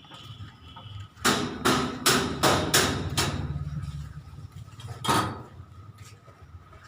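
A series of six sharp knocks in quick succession, about two and a half a second, then one more knock a couple of seconds later, over a steady low hum.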